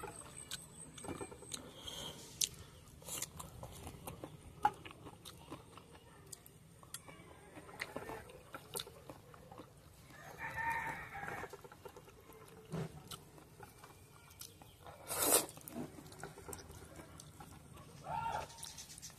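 Close-up eating of instant noodles: chewing and slurping, with the chopsticks clicking against the plate. A rooster crows in the background, and chickens cluck, with one drawn-out call lasting about a second and a half near the middle.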